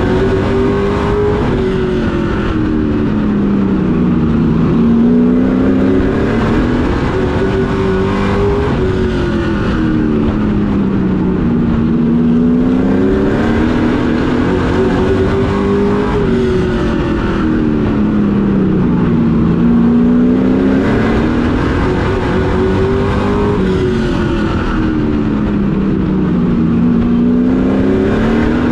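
Pro Truck race truck's engine, heard from inside the cockpit while racing on a short oval. It revs up and then eases off in a repeating cycle as the truck accelerates and lifts through each lap, the pitch climbing and falling about every seven to eight seconds, four times over.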